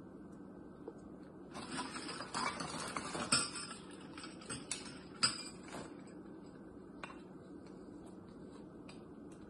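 Christmas ornaments handled on a tabletop: a stretch of rustling about a second and a half in, then a few light clicks and clinks as the baubles are picked up and set down.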